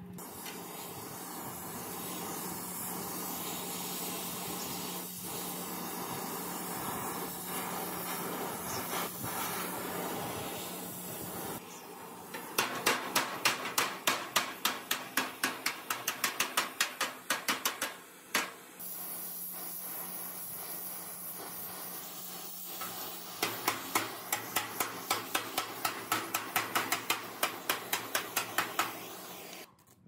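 Rapid metal hammering, about four blows a second, in two runs of several seconds each. A steady hiss with a low hum runs before and between the runs.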